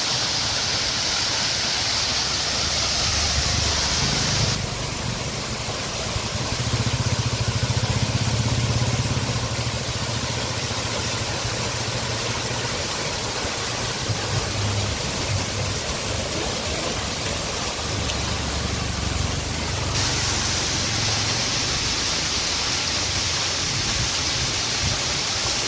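Large waterfall: water falling and crashing in a loud, steady rush, with a low rumble underneath. The hiss grows duller a few seconds in and brightens again near the end.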